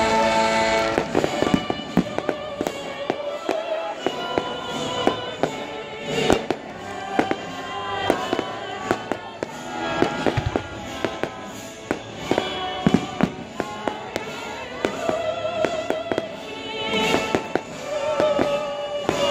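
Fireworks bursting and crackling in irregular bangs, one to three a second, over live orchestral music playing held, sustained notes.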